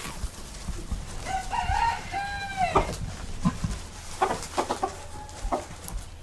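A rooster crowing once, starting about a second in and lasting about a second and a half, followed by a few short, sharp sounds.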